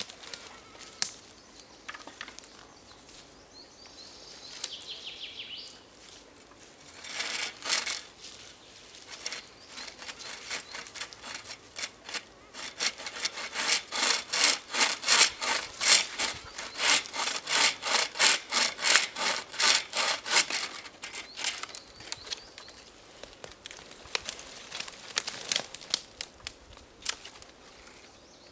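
Wooden-frame bucksaw cutting through a branch, a steady run of back-and-forth strokes at about two a second, loudest through the middle, with shorter spells of sawing before and after.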